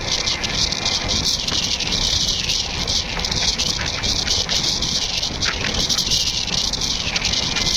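Indian Railways passenger train running at speed, heard from on board: a steady rumble of wheels on rail under a loud rushing hiss, with faint irregular clicks.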